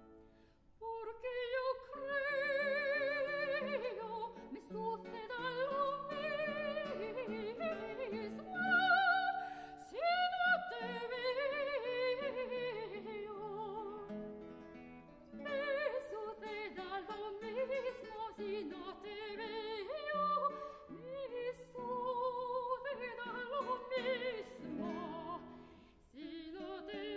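Soprano voice singing a Spanish art song with wide operatic vibrato, accompanied by a plucked classical guitar. The singing comes in about a second in and pauses briefly midway and near the end while the guitar carries on.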